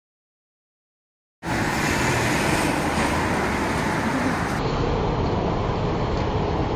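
Dead silence for about the first second and a half, then steady street traffic noise that cuts in abruptly.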